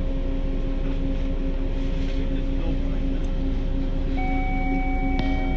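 Steady electrical hum inside a standing Detroit People Mover car, with two low droning tones under it. About four seconds in a clear electronic tone sounds and holds. A second later a click brings in several more held electronic tones.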